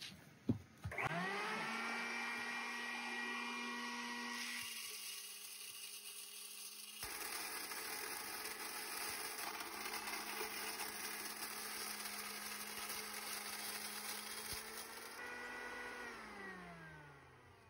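Euromill 25 electric grain mill switched on with a click, its motor whining up to speed and settling into a steady hum. From about seven seconds in a rough grinding noise joins as feed corn is cracked through the coarse screen; near the end the mill is switched off and winds down with a falling whine.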